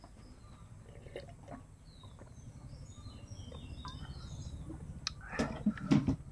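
Small birds chirping in the background, a flurry of short calls in the middle, over a low steady rumble. Near the end come a few louder knocks and rustles as food is handled by hand on a banana leaf.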